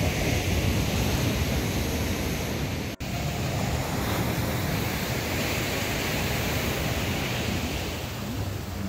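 Sea surf washing onto a sandy beach, with wind rumbling on the microphone; the sound cuts out for an instant about three seconds in.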